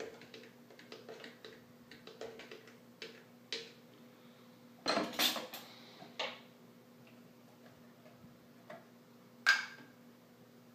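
Hand-turned pepper mill grinding over a bowl: a run of small quick clicks for the first few seconds. Then a louder clatter of kitchen things on the counter about five seconds in, and a single sharp knock near the end.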